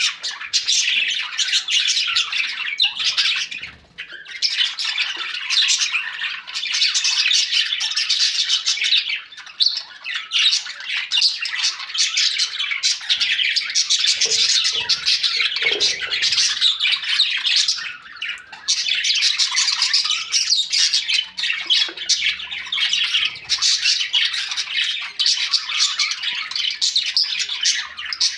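Several baby parrots squawking in a dense, high-pitched, almost unbroken chorus, with only a few short pauses.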